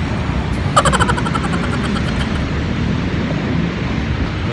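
Steady low rumble of city road traffic. About a second in, a brief high, buzzing sound pulses rapidly for about a second and a half.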